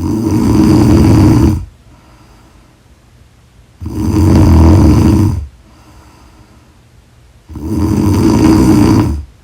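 A person snoring loudly in a slow, even rhythm: three snores, each about a second and a half long, roughly every four seconds, with quiet between.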